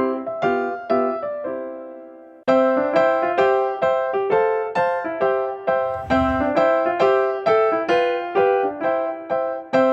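Background piano music with brisk, evenly paced notes. A chord fades out and the music starts again about two and a half seconds in.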